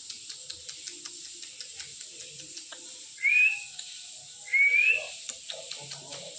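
Pet parrot giving two short rising whistles, one about three seconds in and another about a second and a half later, with faint scattered ticks between them.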